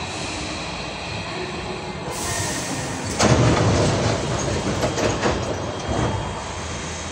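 Hankyu 8000 series electric train running, heard from inside its front car: a steady rumble that swells to a louder rattle with a few sharp clicks from wheels on the rails about three seconds in, easing back near the end.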